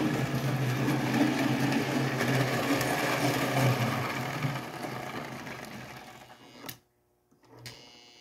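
Lionel 238E 'Torpedo' O-gauge toy locomotive from 1937 running on three-rail track: the whir of its electric motor and gearing with the wheels on the rails, fading as it slows to a stop about six seconds in. Then a sharp click, a moment of silence, another click, and a faint steady hum.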